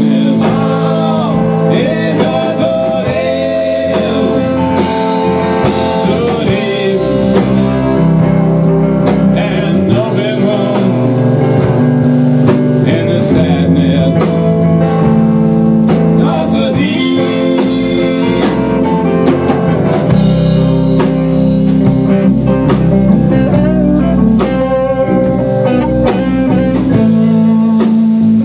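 Live band playing a blues-rock number: electric guitars, bass guitar and drum kit.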